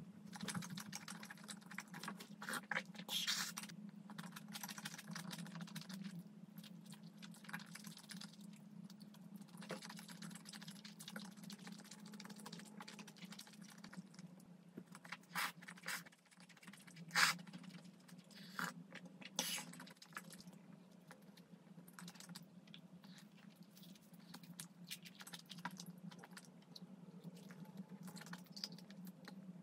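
Close-miked chewing of beef short rib, with scattered sharp clicks, the loudest a little past halfway, over a steady low hum.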